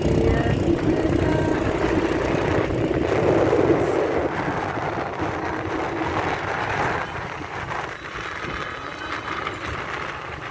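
Motorbike engine and road-traffic noise heard while riding along a city street, loudest in the first few seconds and easing off after about seven seconds.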